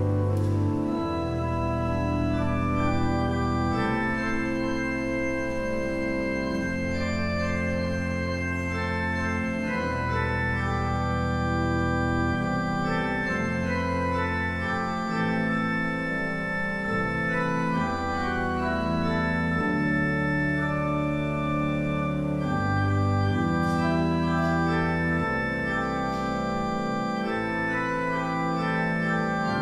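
Two-manual church organ playing slow sustained chords over a deep bass line that moves to a new note every second or two.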